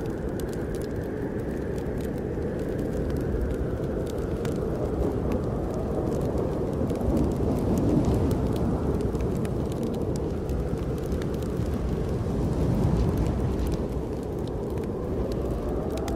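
Snowstorm wind howling in slow rising and falling gusts, with a wood fire crackling in small scattered pops underneath.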